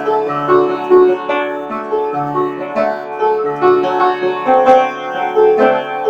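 Instrumental background music: a melody of plucked or keyboard notes over a low sustained bass line.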